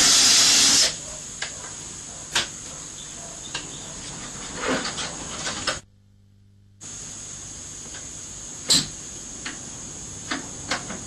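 A power drill boring a hole in a plastic container, stopping about a second in. After that come scattered light clicks and knocks as the work is handled.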